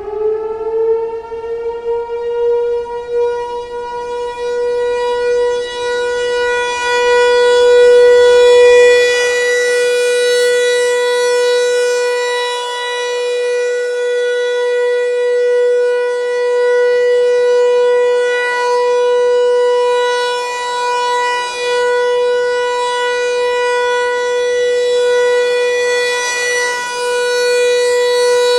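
ASC T-128 outdoor warning siren sounding the steady Alert signal for a tornado warning. It reaches full pitch in the first second after winding up, then holds one steady tone with rich overtones, swelling and fading in loudness every several seconds.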